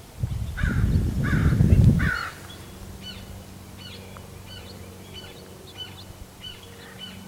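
A corvid gives three harsh, falling caws in the first two seconds, over a loud low rumble on the microphone. After that a small bird chirps over and over, in short, faint notes.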